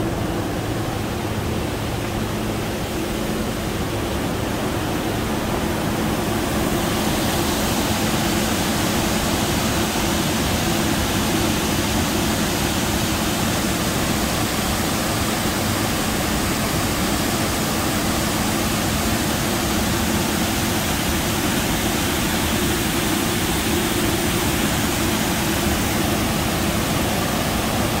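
Steady rush of water pouring over a partly frozen waterfall, half open and half iced over; the hiss grows fuller about seven seconds in.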